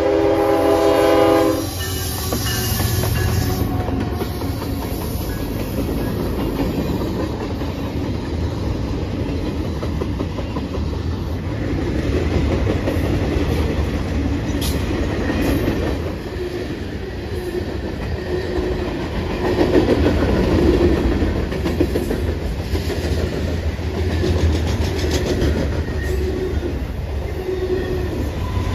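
Norfolk Southern freight train passing close by. A locomotive horn blast cuts off about a second and a half in, then the cars keep rumbling past with the clickety-clack of wheels on the rails.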